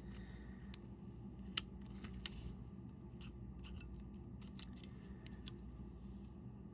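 Small sharp metallic clicks and ticks of watchmaker's tools at work on a wristwatch module as its battery is taken out. Three clicks stand out, about a second and a half, two seconds and five and a half seconds in, over a steady low hum.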